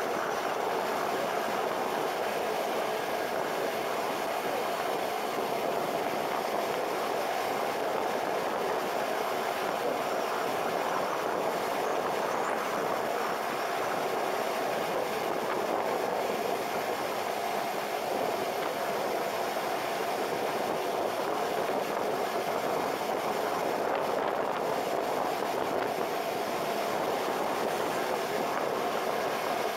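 Steady wind rush and running-engine noise from a Suzuki cruiser motorcycle riding at constant speed on a highway, heard from a camera mounted on the bike.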